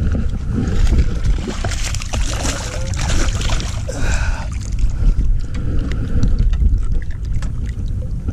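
Largemouth bass splashing and thrashing at the surface beside the boat as it is fought in and landed. The splashing is loudest between about one and four seconds in. Heavy wind rumble on the microphone and handling clicks and knocks run under it.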